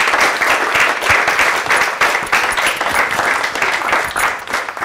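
Audience applauding: many hands clapping densely and evenly.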